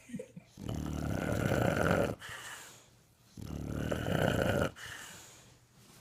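English bulldog snoring in its sleep: two long snores, each lasting over a second, the first about half a second in and the second about three and a half seconds in, each tailing off into quieter breathing.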